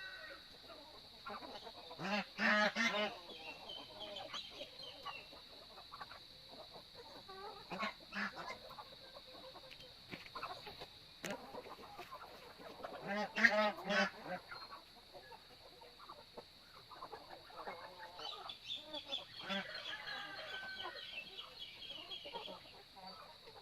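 Farm poultry calling: two loud honking calls, one about two seconds in and one about thirteen seconds in, among softer scattered clucks and chatter, with a run of higher calls near the end.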